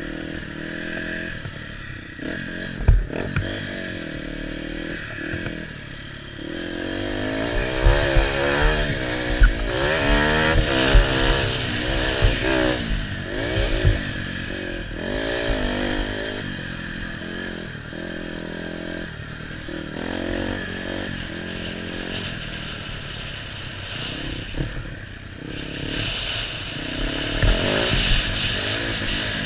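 KTM 250 EXC two-stroke dirt bike engine being ridden hard, revving up and dropping back over and over as the rider works through the gears, heard from the rider's helmet. Thumps from the bike hitting bumps and landing come about three seconds in and repeatedly in the middle stretch.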